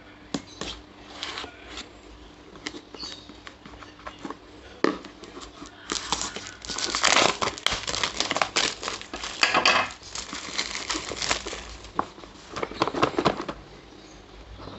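Plastic shrink-wrap on a cardboard earbuds box being slit with a pocket knife and then peeled and torn off. First a few light scrapes and taps, then loud crinkling of the plastic from about six seconds in, with a second shorter stretch of crinkling near the end.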